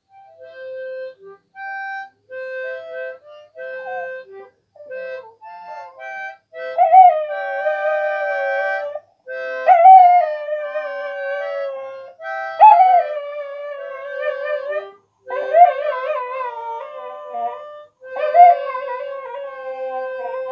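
Harmonica played in short held notes, joined from about seven seconds in by a dog howling along in five long wavering howls, each starting with a sharp rise in pitch, while the harmonica keeps playing. The howls are the loudest sound.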